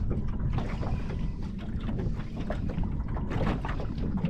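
Wind buffeting the microphone over water lapping against the hull of a small aluminium boat, with irregular small knocks and ticks.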